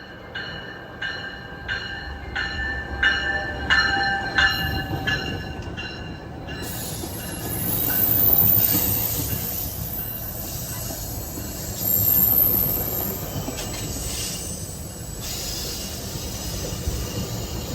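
A bell rings about twice a second, then gives way to a GO Transit commuter train rolling into the station. Its wheels and running noise swell loudest about eight and twelve seconds in, with a thin, high wheel squeal.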